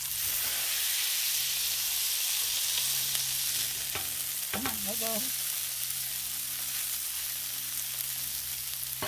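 Ground beef and breadcrumb patties sizzling steadily on a hot flat-top griddle as they are smashed flat with a metal spatula; the sizzle jumps up right at the start. A short wavering squeak sounds about halfway through.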